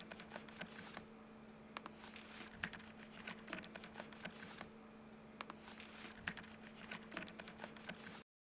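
Faint computer keyboard typing: quick, irregular key clicks over a low steady hum, cutting off suddenly just before the end.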